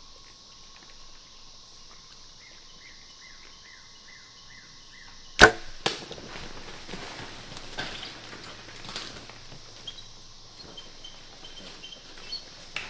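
Bow shot at hogs: one sharp, loud crack of the bow and arrow about five seconds in, a second, smaller knock half a second later, then hogs scrambling and scuffling through brush. A steady high hiss runs underneath.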